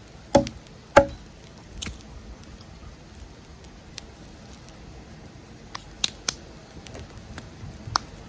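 Two sharp knocks about half a second apart near the start, then a few lighter clicks and taps, like utensils and ingredients being handled during camp-cooking prep.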